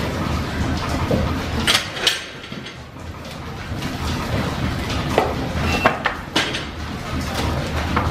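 Metallic clanks and knocks at the open firebox of a vertical steam boiler as the fire is tended: two loud clanks about two seconds in, then a cluster of sharper knocks a little past halfway, over a steady low rumble.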